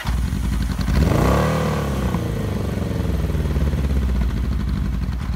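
1983 Kawasaki GPZ 750's air-cooled inline-four running through a LeoVince SBK aftermarket exhaust. It idles, and a blip of the throttle about a second in raises the revs briefly before they fall back to a steady idle.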